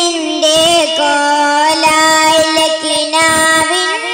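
A solo young voice singing a Malayalam Islamic devotional song (a madh song in praise of Madinah) into a microphone, holding long drawn-out notes that bend up in pitch near the end.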